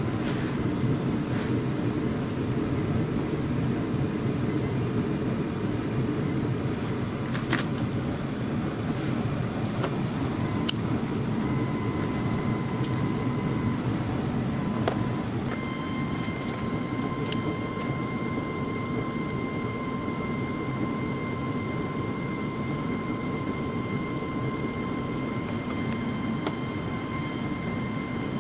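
A machine running steadily with a dense low rumble. Partway through, a steady whine comes in and grows stronger. A few sharp clicks sound in the first half.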